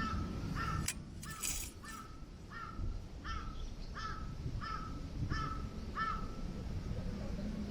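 A crow cawing about ten times in a steady series, roughly one caw every two-thirds of a second, stopping about six seconds in.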